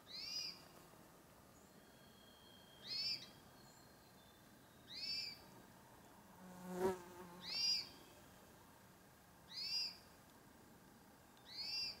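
A bird repeating a short, high, arching call note six times, about two seconds apart, with a fainter, long thin whistle from another bird between the first and third calls. A single sharp knock comes about seven seconds in.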